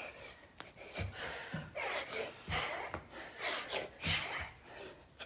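Hard breathing, with a gasp or sharp exhale about once a second, and soft thuds of feet landing on the floor during repeated star jumps.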